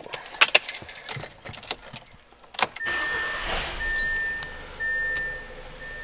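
Car keys jangling in the cabin of a 2018 Audi A3, then a sharp click, followed by the car's electronic warning chime sounding in on-off tones as the ignition is switched on.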